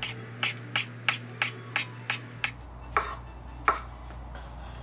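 A large kitchen knife slicing a king oyster mushroom on a wooden cutting board. The blade taps the board about eight times in a quick, even run, roughly three a second, then twice more at a slower pace.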